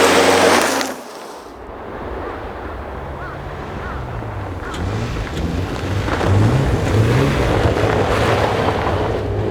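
Rally car engines on a snow stage: a loud engine with a rushing noise that cuts away sharply about a second in. Then engine revving rises and falls over and over, growing gradually louder.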